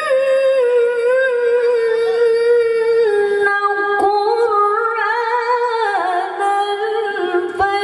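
A woman reciting the Quran in melodic tilawah style, holding one long ornamented vocal line that steps down in pitch about three seconds in and again about six seconds in, sung into a handheld microphone over a PA.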